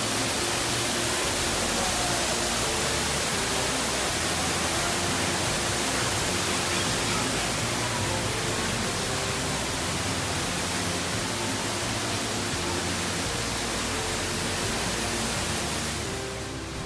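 Steady rushing splash of an artificial waterfall, thin streams of water pouring onto stone. It swells in at the start and fades out near the end.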